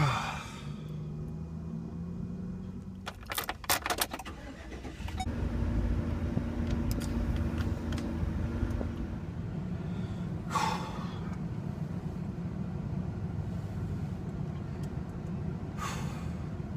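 Keys jangling, then a van engine starting about five seconds in and settling into a steady idle.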